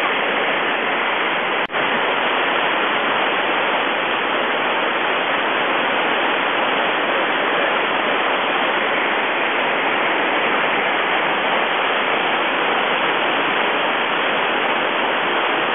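Whitewater rapid in high flow, about 1400 cfs, rushing steadily as brown floodwater pours over and around boulders. A brief click and dropout break it once, a little under two seconds in.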